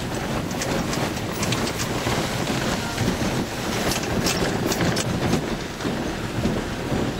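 Wind buffeting the microphone over the rumble of a moving vehicle, with a few light clicks or rattles around the middle.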